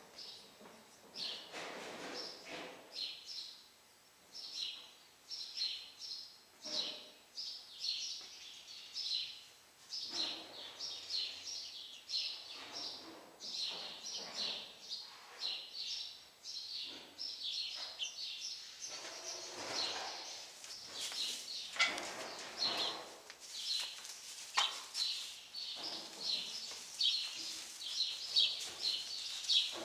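Small birds chirping rapidly and continually, in short high chirps several times a second, with occasional soft rustling of movement in the stall.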